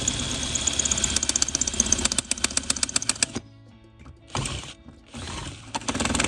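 Power drill running on a seized screw in a caravan rear light housing, drilling the head out, with rapid clicking through the middle. It stops about three and a half seconds in, then runs again in three short bursts.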